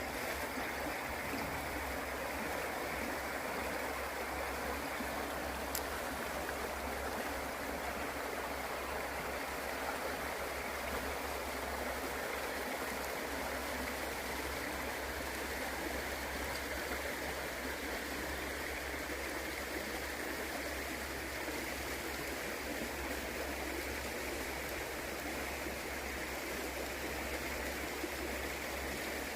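The River Okement gurgling and rushing steadily.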